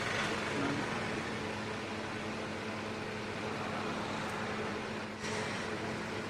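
A steady electric hum with a constant low tone under an even noise, briefly dropping and changing about five seconds in.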